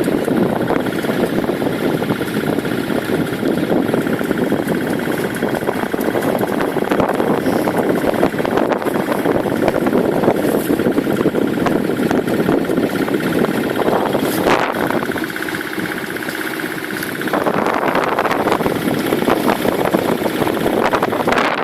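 A boat's engine running steadily, with a sharp click about fourteen seconds in.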